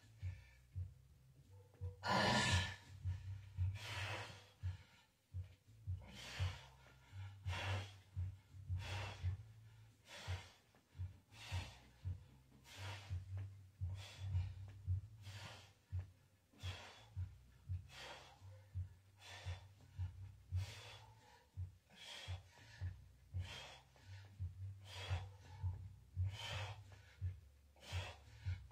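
A man breathing hard and forcefully through a set of barbell bench presses, a sharp puff of breath about once a second, the longest and loudest about two seconds in. A steady low hum runs underneath.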